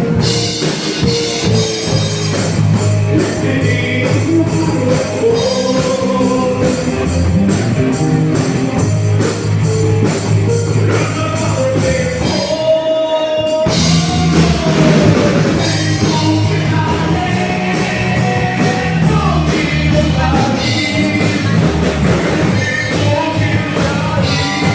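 Live rock band playing with drums and a singing voice, pausing briefly about halfway through before coming back in.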